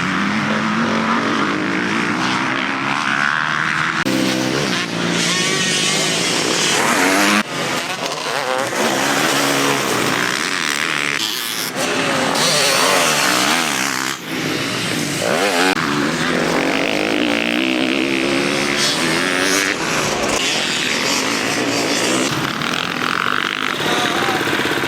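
Motocross bike engines revving hard, the pitch climbing and dropping over and over through throttle blips and gear changes, with several abrupt jumps in the sound.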